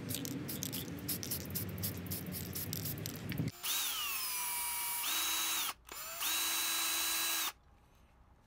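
Cordless drill boring a hole through a thin painted steel strip in three short runs. The first run drops in pitch as the motor loads, and the next two hold a steady whine. Before the drilling comes a stretch of steady noise with faint clicks.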